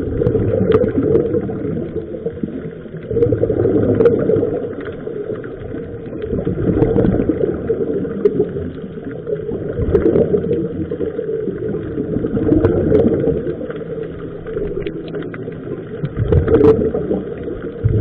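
Underwater sound of scuba divers breathing through regulators: bursts of exhaled bubbles rush and gurgle, swelling and fading about every three seconds over a low, dull background, with a few faint clicks.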